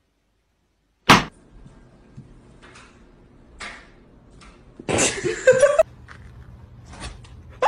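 A balloon bursting with a single sharp, loud pop about a second in as a caracal bites it. About five seconds in comes a second, shorter noisy stretch with a rising pitched sound in it.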